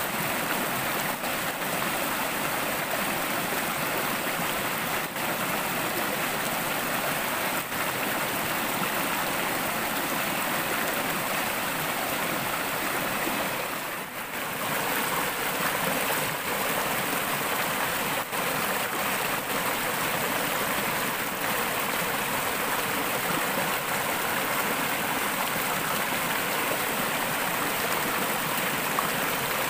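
Fast forest stream rushing and splashing over rocks, a steady wash of water noise, briefly quieter about halfway through.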